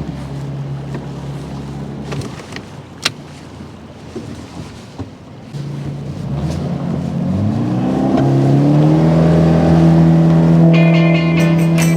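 Boat motor running steadily, dropping away about two seconds in. Then a motor throttles up, its pitch rising for a few seconds before it settles at a steady higher speed. Music comes in near the end.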